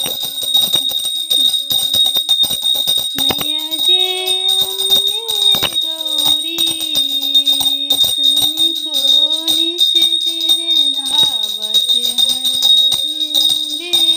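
Devotional aarti song: continuous jingling and ringing bells, joined about three seconds in by a voice singing a slow melody with long held notes.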